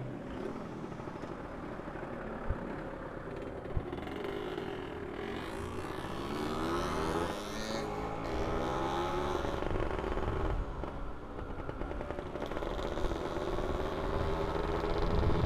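Two-stroke motorcycle engine running while riding, with low wind rumble. The engine pitch rises and falls a few times in the middle.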